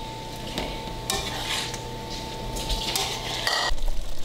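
A utensil stirring chicken afritada stew in a pot, in several scraping strokes against the pot, the last and loudest near the end.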